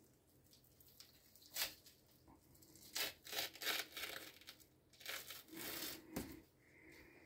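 Small cod fillet being handled and pulled apart by hand, giving short tearing and crinkling bursts, several close together, with a dull thump about six seconds in.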